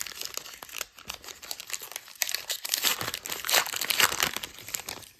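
Crinkling and tearing of a Topps Archives baseball card pack wrapper being opened, busiest in the second half and stopping at the end.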